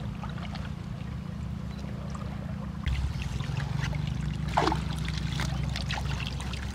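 A boat engine runs steadily underneath water trickling and splashing in a fish-trap net. About three seconds in, the sound gets louder, with a thick run of small wet splashes and rustles as a hand works through the trapped fish and debris.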